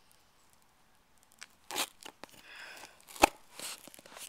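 Cardboard shipping box being cut open: after a short quiet, short rasping strokes of a blade through packing tape mix with crunching handling of the cardboard, with one sharp knock a little over three seconds in.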